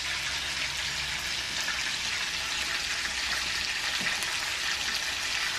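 Raw chicken breasts frying in hot oil in a skillet: a steady sizzle with faint scattered crackles.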